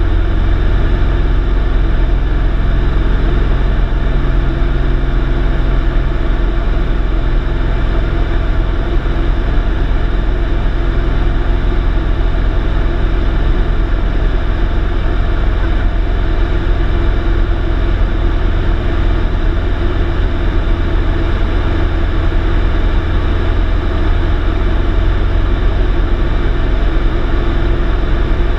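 Light aircraft's engine and propeller droning steadily, heard from inside the cabin in level cruise, with no change in pitch.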